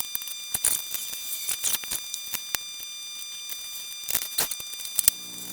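Irregular light clicks and taps of metal compressor parts being handled while a bearing is slipped back in on the crankcase.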